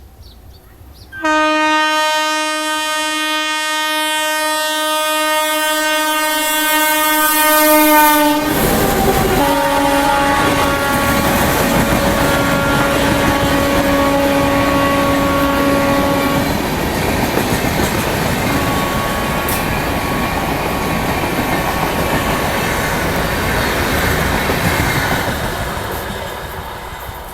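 WAP7 electric locomotive's air horn sounding one long continuous blast from about a second in, dropping in pitch as the locomotive passes. Then the rush and clatter of the passing coaches, with the horn held again for several seconds and once more briefly, fading near the end.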